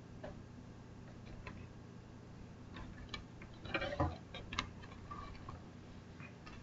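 Scattered light plastic clicks and taps from a hobby-grade plastic RC buggy being handled, with a louder cluster of clicks and knocks about four seconds in.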